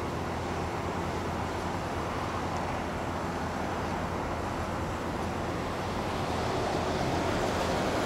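Heavy diesel asphalt-paving machinery running steadily: a low engine drone under a broad rumble, getting a little louder near the end.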